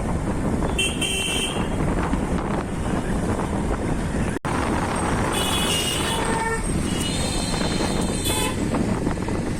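Road traffic noise heard from a moving motorbike, with vehicle horns honking: a short honk about a second in, then several more honks past the middle.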